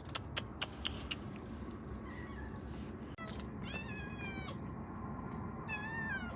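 Cats meowing: two clear, high-pitched meows about two seconds apart in the second half, after a fainter one. A few sharp clicks come in the first second.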